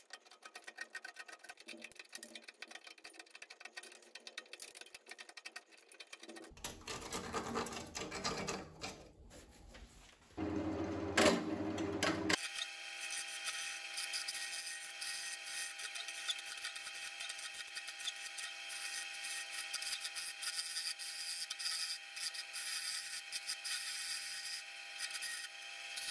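Crackling scrapes as loose bark is picked off a stopped piece of firewood on a wood lathe; about halfway through, the lathe starts running with a steady motor hum while a turning tool cuts the spinning firewood with a continuous scraping hiss.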